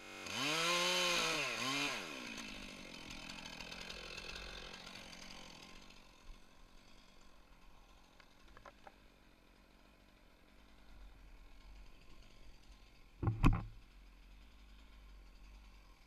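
Chainsaw revving up and down twice, then its sound trailing off over the next few seconds. A single sharp, loud knock comes about 13 seconds in.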